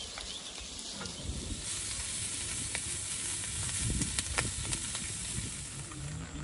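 A steady hiss that swells about two seconds in, with a few sharp crackles through it.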